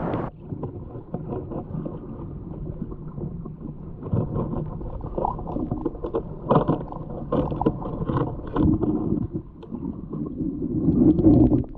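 Shallow sea water sloshing and swirling around a snorkeller, with irregular knocks and bumps, heard muffled through a camera in the water.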